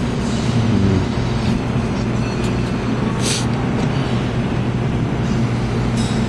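Steady low machine hum and background din of an arcade, with a short hiss about three seconds in.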